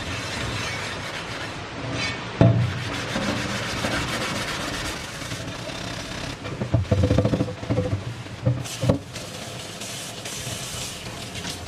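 Scouring sponge scrubbing a new cast-iron tawa in a stainless-steel sink, washing off its black coating, with a knock about two seconds in and a clatter of the pan against the sink around the middle. Near the end, tap water runs over the pan as it is rinsed.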